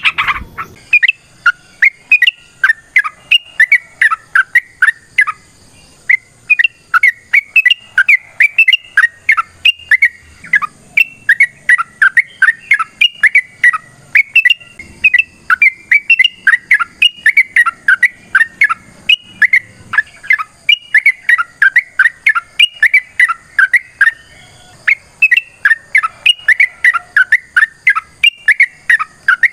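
Yellow-vented bulbul (trucukan) singing a long, fast run of short, sharp chirping notes, about three or four a second, broken by brief pauses every few seconds.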